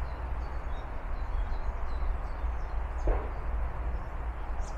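Outdoor ambience: a steady low rumble with faint birds chirping high above it, and a soft knock about three seconds in.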